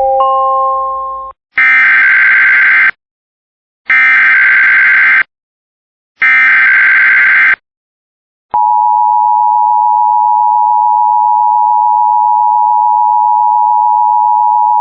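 Emergency Alert System signalling before a blizzard warning is read. A short chime of stepped electronic tones is followed by three harsh bursts of SAME header data, each about a second long, a second apart. Then, from about eight seconds in, the steady two-tone attention signal sounds.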